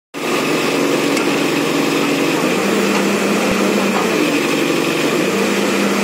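Case backhoe loader's diesel engine running steadily while it works its boom to pull a truck out of a drain, the engine note shifting about two and a half seconds in and again near the end.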